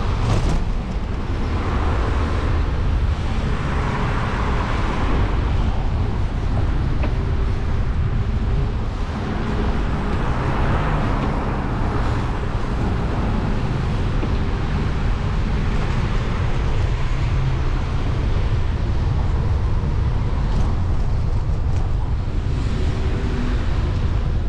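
Wind rumbling on the microphone during a bicycle ride, with road traffic noise that swells and fades a few times.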